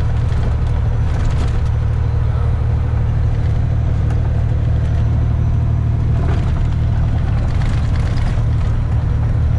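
Inside the cab of a semi truck cruising at highway speed: a steady low diesel engine drone mixed with road noise.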